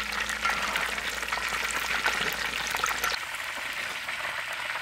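Battered chicken pieces deep-frying in hot oil in a wok: a steady sizzle thick with small crackles and pops. A low hum underneath cuts out about three seconds in.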